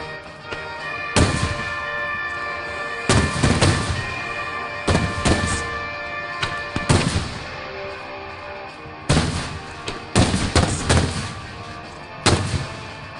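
Aerial firework shells bursting: about a dozen loud bangs at uneven intervals, some in quick clusters, several followed by a crackling tail.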